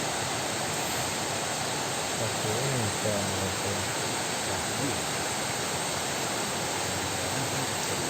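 A steady, even rushing hiss, with faint low voices in the background about two to three and a half seconds in.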